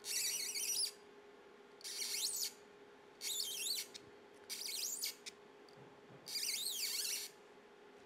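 M3 spiral-flute tap being turned by hand in a tap wrench, cutting threads into a drilled hole in thin acrylic without lubricant. It gives five short, high-pitched squeaks, each under a second long and about a second apart.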